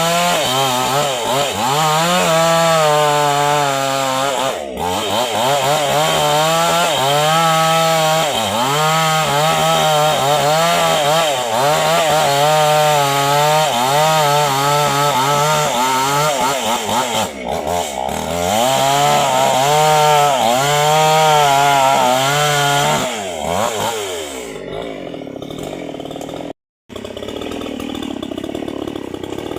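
Two-stroke chainsaw running hard while cutting through a tree, its pitch wavering up and down as the chain bites and frees in the wood. Near the end the engine drops back and the sound is quieter, with a brief complete cutout.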